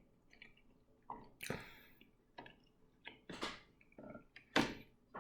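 Faint wet chewing and mouth sounds of someone eating sushi with slimy raw fish, in a few short scattered bursts, the loudest near the end.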